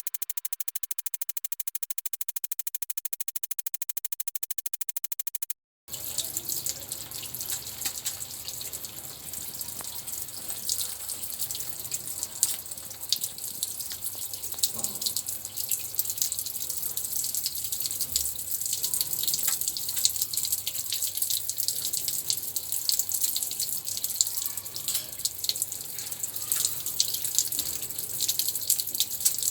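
Electronic background music for the first few seconds, then a sudden cut to running, splashing water with fine dripping and spattering that goes on steadily: water being run over parrots for a bath.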